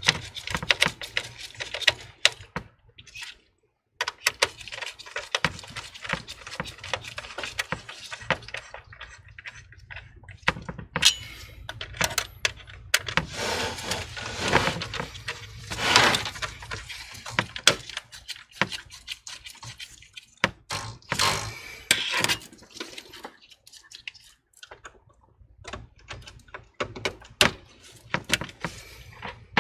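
Irregular clicks, taps and rustling of a gloved hand handling cables and parts inside a computer case, plastic and metal knocking as power cables are pushed into place.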